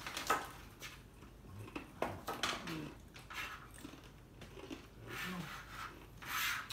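A kitchen knife slicing vegetables on a plastic cutting board: a handful of separate, unhurried cuts, the loudest near the end, with low murmured voices underneath.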